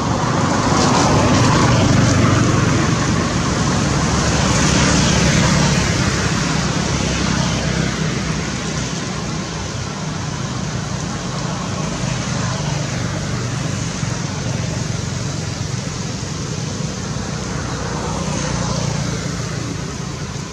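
Road traffic going by: a steady rushing noise that swells as vehicles pass, loudest in the first few seconds and again near the end.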